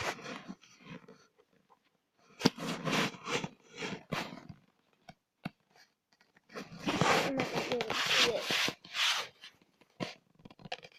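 Close handling noise: rubbing, scraping and clicks of objects being moved and handled near the microphone, in two longer stretches with quiet gaps between.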